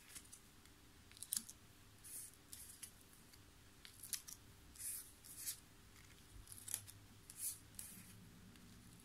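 Small cards being lifted and pressed onto hook-and-loop dots on a paper board: a scattered series of faint, short, high rasps and clicks, about a dozen of them.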